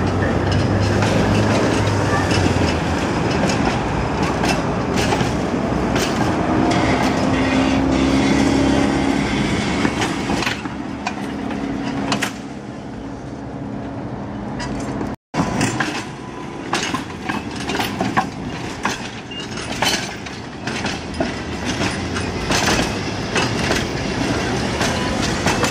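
Tatra tram passing slowly: motor hum with steady low tones through the first half, then wheels clacking sharply and repeatedly over rail joints and track switches. The sound drops out briefly about 15 seconds in.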